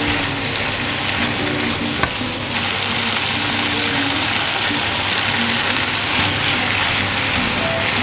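Korean spicy stir-fried beef and sliced onions sizzling in a nonstick frying pan, a steady loud hiss, as they are stirred and turned with tongs, with a small click about 2 s in.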